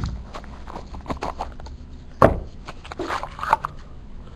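Trading-card box and pack being opened and the cards handled on a table: a run of light clicks, taps and scrapes, with louder knocks at the start, about two and a quarter seconds in, and about three and a half seconds in.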